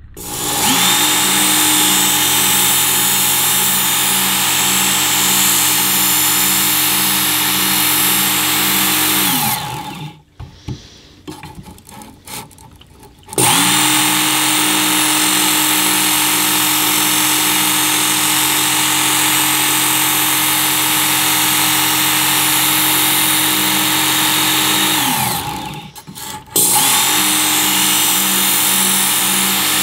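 Work Sharp electric belt knife sharpener running with a high whine and a steady low pulsing, a kitchen knife blade held in its sharpening guide against the abrasive belt. It runs in three spells, winding down with a falling whine about nine seconds in and again about twenty-five seconds in, starting up again each time.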